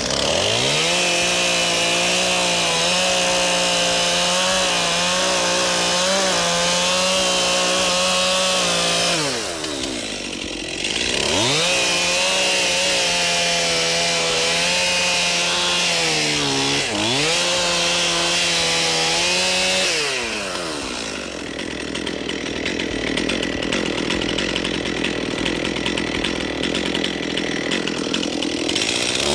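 Two-stroke chainsaw running at full throttle while cutting into wood. The engine pitch drops as the throttle is let off about nine seconds in and climbs again, dips briefly midway, falls once more about two-thirds through, then runs lower and rougher before revving up again at the very end.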